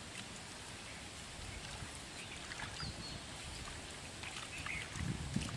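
Steady soft hiss of water and open-air noise, with a few faint clicks and light splashes from hands working in shallow muddy water, and some low thumps near the end.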